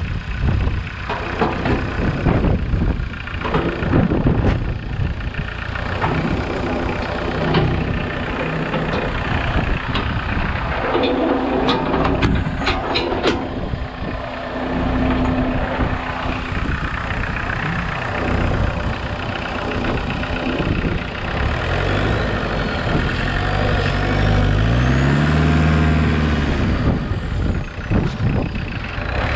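Homemade 4x4 tractor's engine running steadily, with a brief whine and a few clicks about twelve seconds in, then revving up and back down several times near the end.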